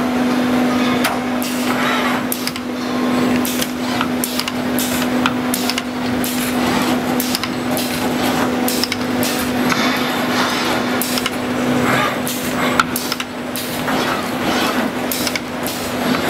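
Robotic wire-bending cell at work: a steady hum under frequent sharp clicks and knocks as the bending head works the steel wire.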